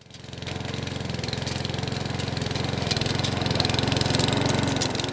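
Webb 132cc OHV four-stroke petrol engine of a rotary lawn mower running steadily at a constant speed. It fades in at the start.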